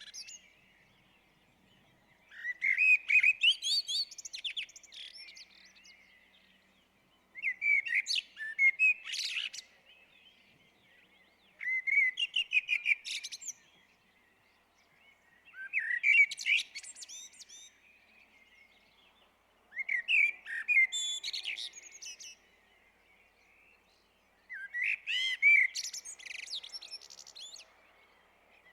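A blackbird singing: six separate song phrases about every four to five seconds, each a run of whistled notes with thin, high squeaky notes mixed in, with short pauses between.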